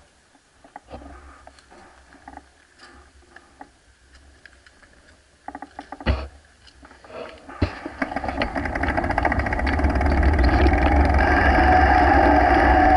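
Mountain bike rolling on tarmac: light freewheel ticking and a knock, then from about eight seconds in a steady hum and rush of knobby tyres and wind on the camera that grows louder as the bike picks up speed.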